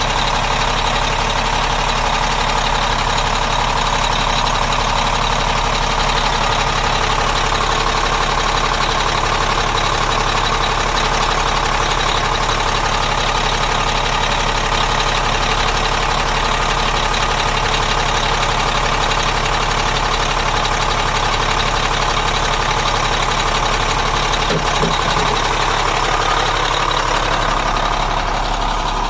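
Dump truck engine running steadily.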